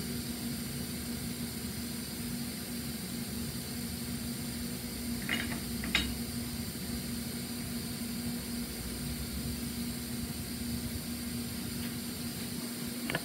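Steady low hum and hiss of workshop room tone. A couple of faint light taps come about five and six seconds in, as a mower blade is handled on a cone balancer.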